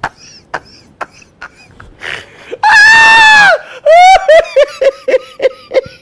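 Heavy laughter sound effect: a person laughing hard. About two and a half seconds in comes a loud, high-pitched shriek, followed by a fast run of short 'ha-ha' bursts.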